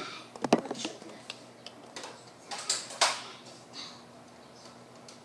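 Plastic clicks and knocks from a Nerf foam-dart blaster being handled and primed, with two short hissing puffs about three seconds in.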